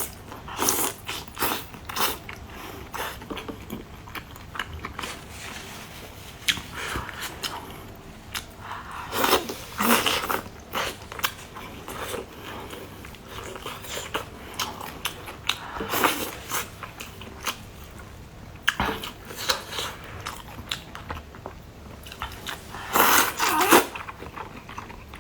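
A person eating close to the microphone: a run of wet bites and chewing with crunching, with louder bursts near the middle and again near the end.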